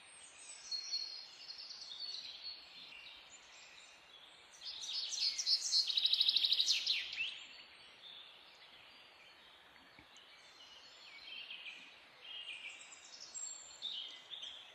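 Small birds chirping in the background, with a louder fast trill about five seconds in that lasts a couple of seconds.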